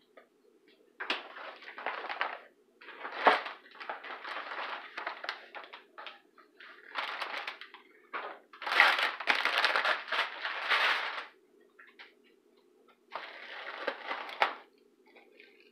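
Rustling and crinkling of packaging as boxes and bags are packed into a fabric shopping-cart bag, in several bursts with a couple of sharp knocks.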